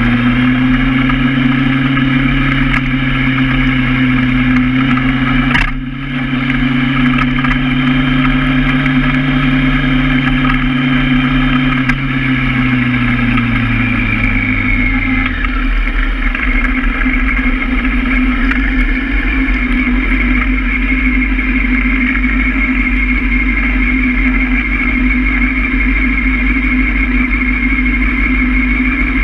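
Honda Hornet motorcycle engine running under way with wind noise on the microphone; about halfway through its note falls as the bike slows, settling into a steady idle at a stop with the gearbox in neutral.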